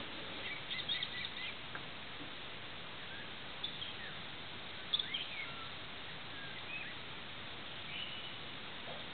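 Wild birds calling in short chirps and brief whistled glides, scattered through, with a cluster about a second in, over a steady background hiss.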